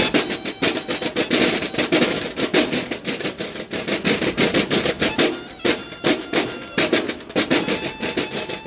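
Marching snare drums of a banda de guerra playing a fast cadence of rapid strokes, with a drum roll about a second in.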